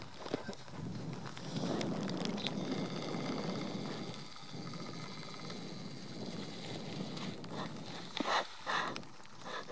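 Wind rumbling and buffeting on the microphone outdoors, rising and falling, with two short louder sounds near the end.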